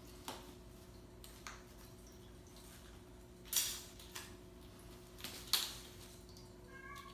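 Kittens pouncing on a feather wand toy on a laminate floor: scattered light taps and scrabbles of paws and claws, with two louder thumps about halfway through and again two seconds later.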